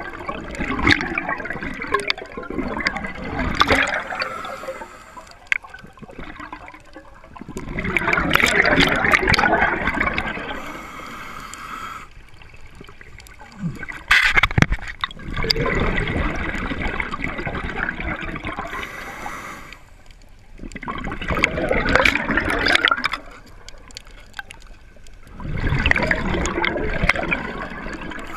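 Scuba diver breathing through a regulator underwater: exhaled bubbles gurgle in long bursts every few seconds, with short hissing inhalations in the gaps between them.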